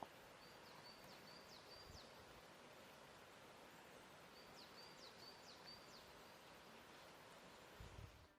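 Faint outdoor background with a small songbird singing two short phrases of repeated high notes and quick downward slurs, one near the start and one a little past the middle.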